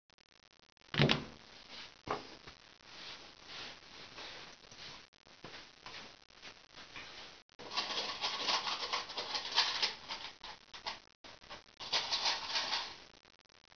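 Handling noise: a single knock about a second in, then irregular rustling and clattering that thickens into two spells of several seconds each in the second half.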